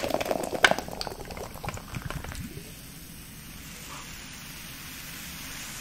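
Carbonated lemonade soda poured from a can into a glass jar, splashing with a sharp clink in the first second or so. It then settles into a steady fizzing hiss as the bubbles rise in the jar.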